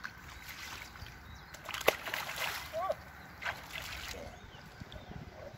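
Splashing and sloshing in shallow water as a carp is let go from the hands and kicks free, several splashes over the first four seconds with one sharp slap about two seconds in.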